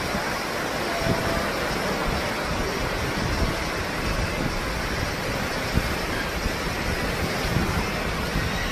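Steady wind buffeting the microphone over the wash of sea surf, with a few brief bumps.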